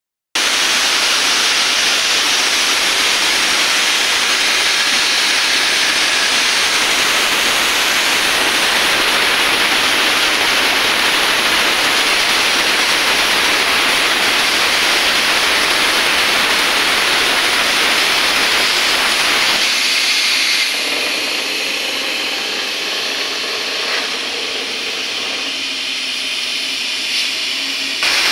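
Plasma torch of a CNC plasma cutting machine cutting metal: a loud, steady hiss. About twenty seconds in it drops to a quieter, thinner hiss for several seconds, then comes back at full strength just before the end.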